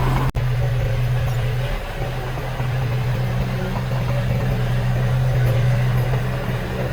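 Heavy diesel engine of earthmoving machinery running steadily with a low drone. The sound cuts out for an instant just after the start.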